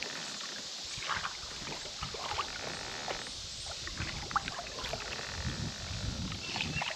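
Kayak paddle strokes in the water: soft splashes and drips with a few short clicks and knocks, over a steady high hiss.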